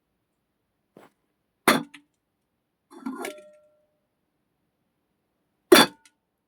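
Sharp knocks of a vessel being handled and set down, three of them loud, with a short ringing clink of metal about three seconds in.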